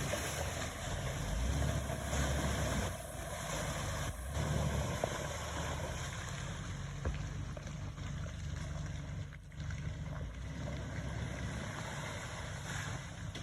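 Jeep TJ engine running steadily at low revs, with a broad steady hiss over it.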